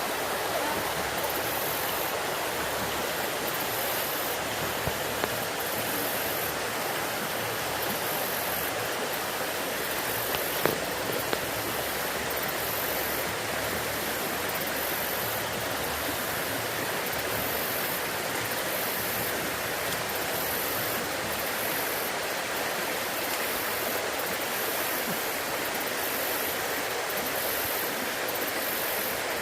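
Floodwater rushing steadily, a high-water flow swollen by heavy thunderstorm rain. A couple of brief knocks stand out about five and eleven seconds in.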